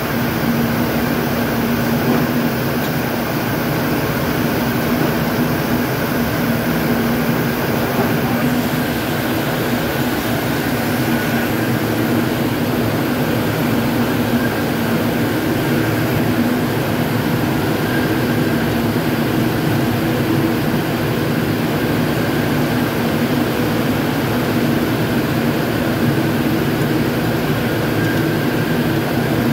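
Ring spinning frames running in a spinning mill: a loud, steady drone of thousands of spindles with an even hum.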